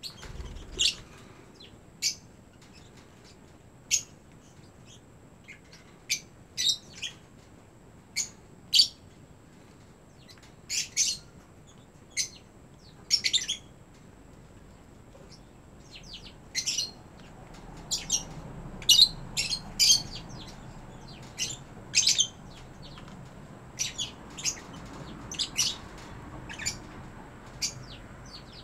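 African lovebirds giving short, sharp, high-pitched chirps, about two dozen at irregular intervals, some in quick pairs. A faint low rush sits underneath from about the middle on.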